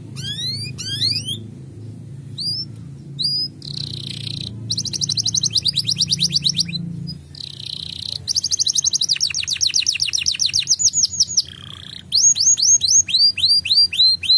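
Male domestic canary singing: quick rising whistled notes, then long rapid trills of repeated notes, ending in a series of slower arched whistles.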